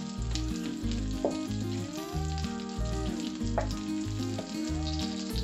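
Butter and olive oil sizzling and crackling as they heat in a nonstick wok, over background music with a bass beat about twice a second.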